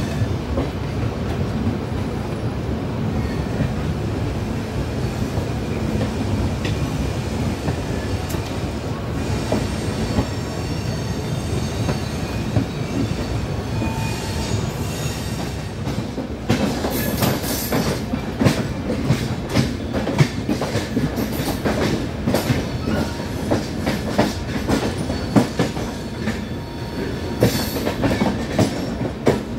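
LHB passenger train coaches running on track, a steady rolling rumble with a thin high wheel squeal midway. About halfway through, the wheels start clattering in quick, sharp clicks over rail joints.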